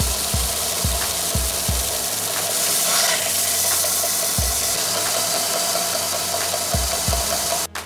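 Bench belt sander running with a wooden block pressed against its abrasive belt: a steady, loud grinding of wood being sanded, with a constant tone from the machine underneath. It starts abruptly and stops abruptly shortly before the end.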